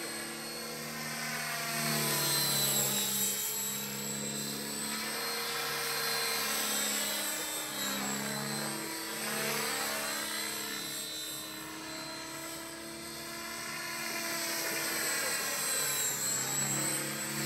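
Radio-controlled model helicopter flying overhead: a steady, high whining engine-and-rotor note. Its pitch sweeps down and back up as it passes, and it is loudest a couple of seconds in and again near the end.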